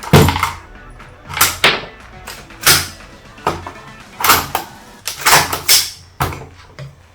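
Gas blowback airsoft AR-15 rifle that ejects shells, fired in single shots: about a dozen sharp cracks at irregular spacing, some in quick pairs and triplets.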